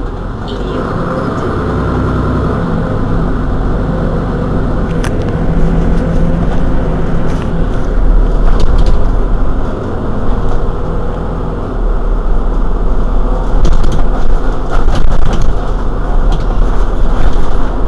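Mercedes-Benz Citaro G C2 articulated bus running on the move, its engine and drivetrain getting gradually louder, with a few short rattles and clicks.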